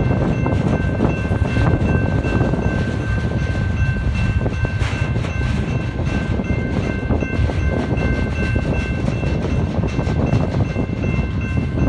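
Loaded flatcars of a BNSF pipe train rolling past, a steady rumble of wheels on rail with many short clicks, mixed with heavy wind buffeting on the microphone. Thin steady high-pitched tones ring throughout.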